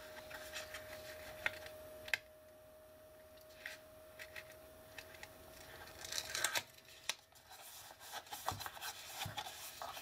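Faint rustling, rubbing and light tapping of paper and cardstock being handled by hand as a small patterned-paper panel is pressed into place in a cardstock niche, with a few sharp little clicks and a short scratchy rustle about six seconds in.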